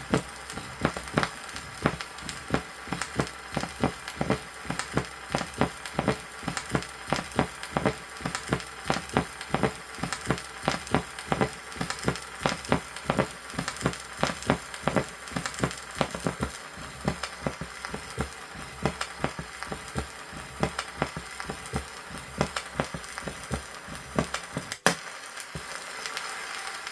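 Recorded human heart sounds heard over the aorta: a steady run of heartbeats whose second sound is accentuated, the sign of hypertensive disease. The recording plays from an old vinyl record, with surface crackle and hiss under the beats and one sharp record click near the end.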